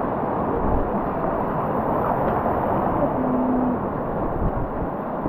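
Steady rush of whitewater around a kayak on a river in high flow.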